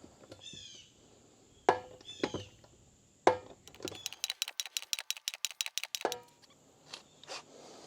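Hand pump dispensing synthetic gear oil: sharp metallic clanks, then a fast run of rattling clicks for a couple of seconds. A small bird chirps twice.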